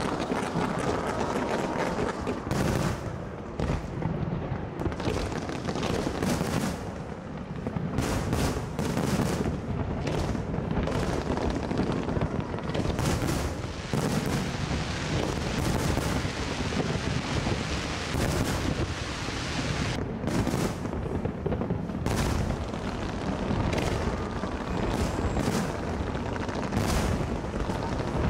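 Fireworks display: a dense, continuous barrage of bangs and booms, many shells bursting close together with no real pause.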